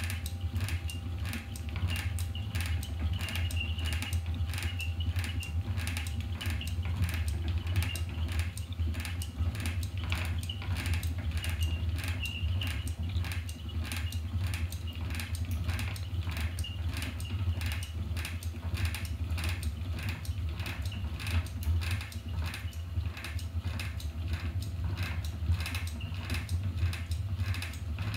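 Wooden spinning wheel turning as wool is spun, its treadle and flyer mechanism clicking rhythmically about twice a second over a steady low hum.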